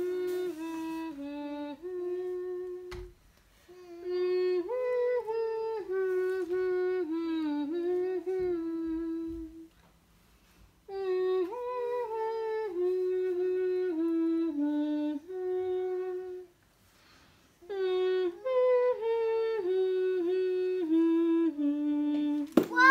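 A young girl humming a wordless tune in four phrases of stepped, held notes, with short pauses between them.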